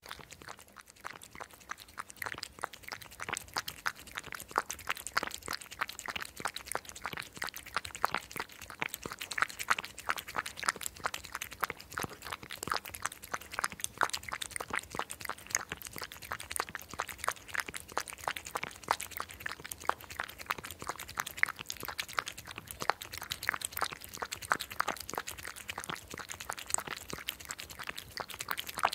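European hedgehog foraging in grass, a rapid, irregular crackle of small crunches and rustles as it chews and noses through the vegetation.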